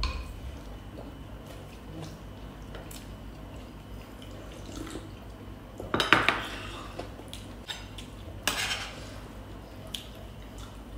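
Metal spoons clinking and scraping against bowls and plates at a meal, a clatter about six seconds in and another about eight and a half seconds in, with single light ticks between.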